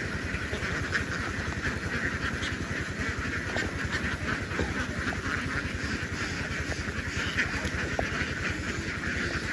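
An engine running steadily with a fast, even low pulse, over the massed quacking of a large flock of ducks.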